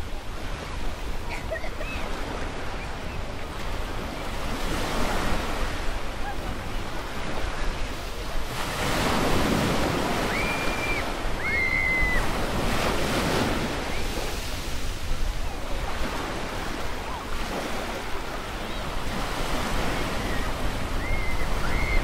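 Sea surf washing onto a beach in slow swells, the biggest waves breaking about nine seconds in and again near thirteen seconds. A few short, high whistled chirps sound over it.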